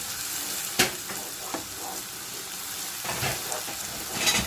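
Sliced onions with whole spices sizzling steadily in hot oil as they brown, with a spoon knocking and scraping against the pan as they are stirred; the loudest knocks come about a second in and just before the end.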